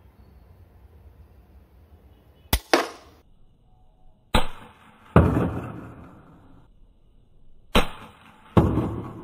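Chain-driven repeating slingshot crossbow shooting three bolts, one about every two to three seconds; each shot is a sharp click followed a moment later by a louder crack that rings away.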